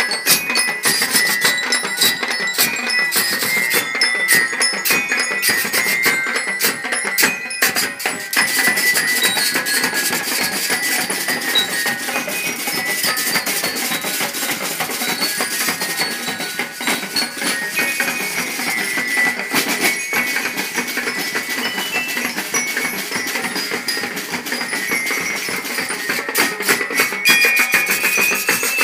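Marching band drumline playing snare drums in a fast, continuous cadence, with a high ringing melody over the drums.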